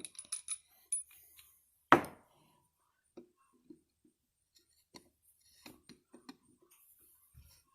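Small metal carburetor parts and screws being handled on a workbench: scattered light clicks and clinks, with one sharp knock about two seconds in.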